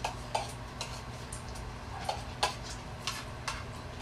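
Cutlery clinking against plates while people eat: about eight light, irregular taps and clicks, over a faint, steady low hum.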